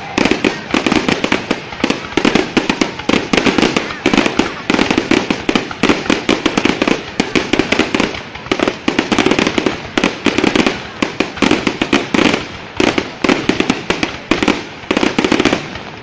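Aerial fireworks exploding in rapid, irregular succession, a dense barrage of bangs and crackles with no break.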